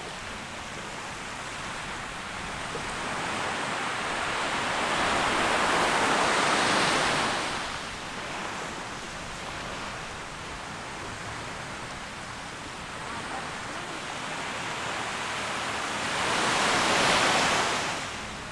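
Small waves breaking on a sandy beach: a steady wash of surf, with two louder waves, the first cresting about a third of the way through and the second near the end, each swelling over a few seconds and then falling away.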